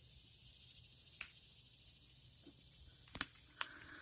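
A steady, high-pitched insect chorus in the background. Two sharp clicks break in, a faint one about a second in and a louder one about three seconds in.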